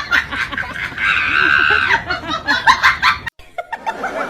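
People laughing in short repeated bursts, with a high, held sound about a second in. The audio cuts off abruptly a little past three seconds, and laughter picks up again after the cut.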